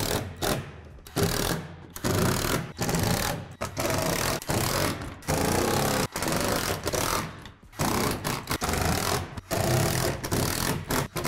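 Cordless drill-driver driving screws into a plastic shed wall, running in short bursts that start and stop about once a second.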